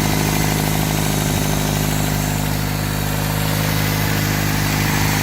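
Freshly rebuilt Toyota pickup engine idling steadily on its first run after the rebuild.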